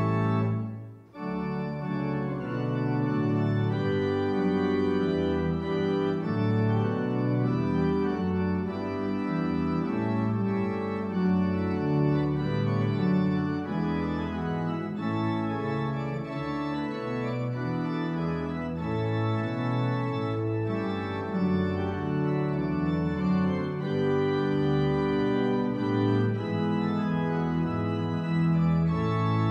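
Organ music: sustained chords moving from one to the next, with a brief break about a second in.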